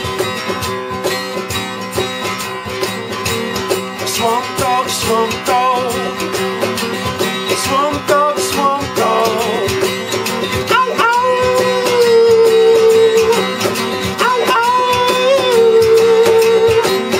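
Acoustic guitar strummed steadily, with a wordless vocal line coming in about four seconds in and two long held notes later on.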